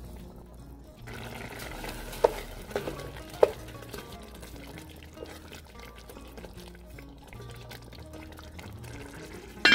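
A wooden spatula stirs raw rice into broth in a metal pot, with a few sharp knocks against the pot about two to three and a half seconds in, over background music. A loud clatter comes right at the end.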